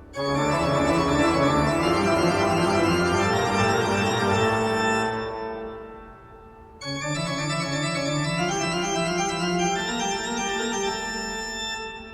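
Background music: sustained organ-like keyboard chords. A long chord starts at once and fades away, and a second begins about seven seconds in and fades likewise.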